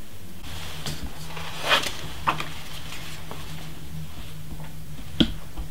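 A few light knocks and handling sounds over a steady low hum, the sharpest knock near the end.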